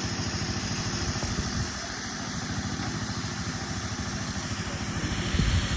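An engine running steadily at idle, with a brief louder surge near the end.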